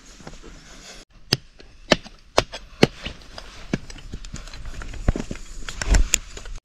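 Machete blade chopping into packed earth while digging a hole: a series of sharp strikes, several about half a second apart, with a heavier thump near the end and dirt scraped out by hand between them.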